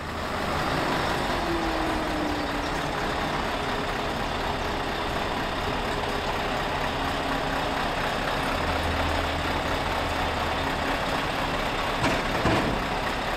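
Scania V8 truck engine running steadily, with a short louder knock near the end.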